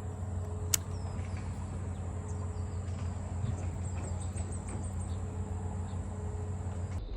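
Steady high-pitched insect trill over a low rumble, with a single sharp click a little under a second in.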